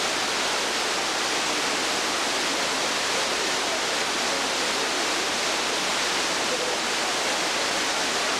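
Dunn's River Falls, water cascading over its rock terraces: a steady, unbroken rushing hiss.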